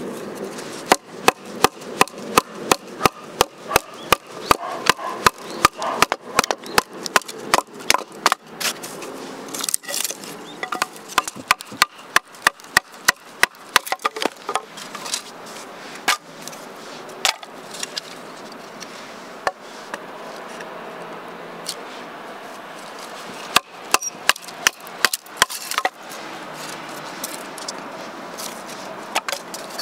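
Kitchen knife chopping on a wooden cutting board: quick, even strokes about three a second in long runs, with a pause in the middle.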